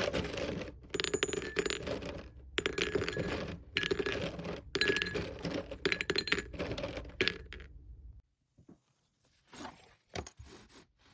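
Packaging being handled and torn open: loud crinkling and tearing in several bursts with short pauses, stopping about eight seconds in, followed by a few light taps and clicks.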